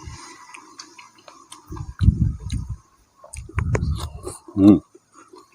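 Close-up chewing of food, with soft crunches, smacks and small clicks coming in short bursts, and a brief hum of the voice about four and a half seconds in.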